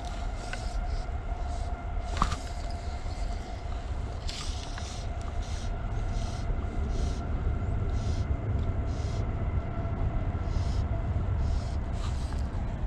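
Fly line being stripped in by hand, making short hisses about once a second as it runs through the rod guides. Under them are a low steady rumble and a faint steady whine.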